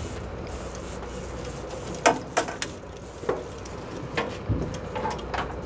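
Irregular sharp clicks and knocks from a fishing rod and reel as a hooked king salmon is played. Under them runs the boat engine's steady low rumble.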